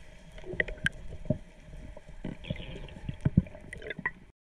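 Sea water sloshing, with scattered short knocks and clicks over a low rumble; it cuts off abruptly near the end.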